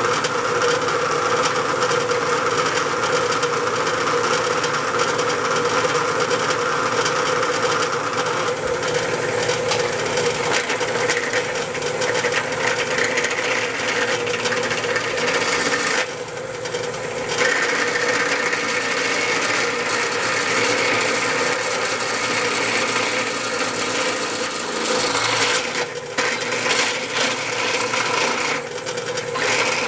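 Drill press running with a steady hum while its bit cuts a hole in a metal part to be tapped for an M6 thread; the cutting noise drops away for a moment about halfway through, while the motor keeps running.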